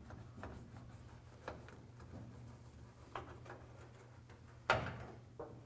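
Small scattered taps and scrapes of a plastic trim tool and fingers tucking a mat's edge under a car's roof rail, with one sharper knock about three-quarters of the way through, over a faint steady hum.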